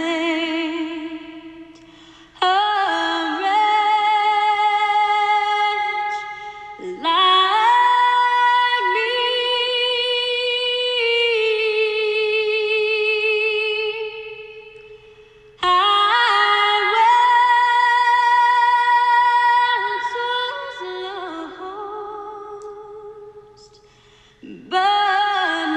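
A woman singing a slow song in long held notes with vibrato. The phrases start loud and fade, with short breaks between them.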